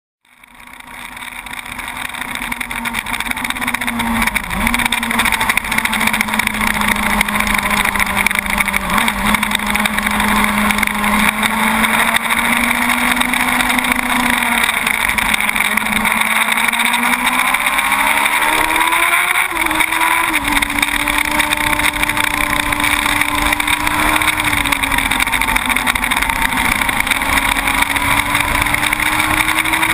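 Yamaha YZF-R1 SP's inline-four engine running hard on a track lap, heard from a cockpit-mounted camera under a heavy rush of wind. The sound fades in over the first couple of seconds; the engine note then holds mostly steady with a few brief dips and climbs for several seconds past the middle before settling again.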